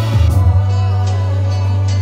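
Closing bars of a hip hop track: the drums stop about half a second in, leaving a held deep bass note under sustained melodic tones.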